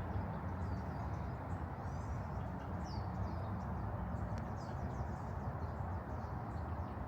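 Several small birds chirping, short high calls that swoop up and down, over a steady low outdoor background noise.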